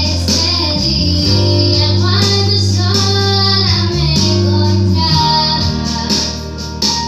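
A young woman singing a melody into a microphone over held keyboard chords, both played through PA speakers.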